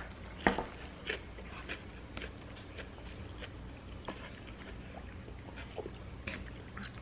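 Close-up eating sounds: chewing and wet mouth clicks and smacks from eating a sandwich, with a louder short smack about half a second in.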